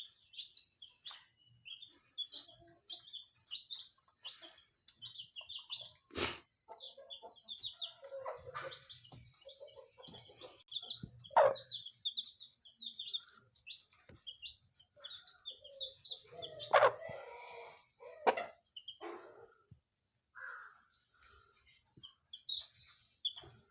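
Country chickens clucking, with high, short cheeping throughout and a few louder calls. A sharp click sounds about six seconds in.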